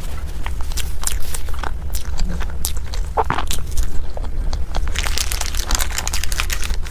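A person eating close to the microphone: biting and chewing, with many irregular sharp crackly clicks.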